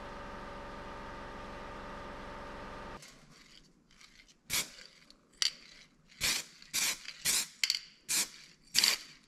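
An aerosol can of weld-through primer sprays in seven short, quick spritzes, starting about four and a half seconds in. Before that, a steady hum runs for about three seconds and cuts off suddenly.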